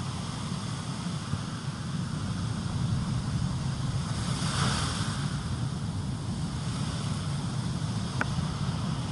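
Ocean surf breaking and washing up the beach, with wind rumbling on the microphone; the wash swells louder about halfway through as a wave runs up the shore.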